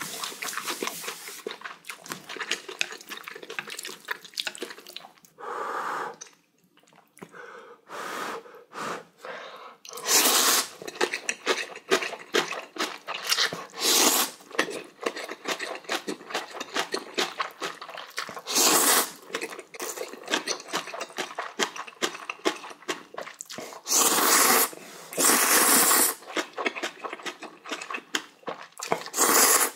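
A man slurping spicy instant ramen noodles: about half a dozen long, loud slurps, with short wet mouth and chewing noises in between.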